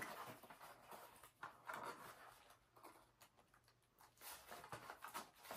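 Faint rustling and a few soft knocks of a metal wreath hanger being tugged at inside its cardboard box, where it is stuck.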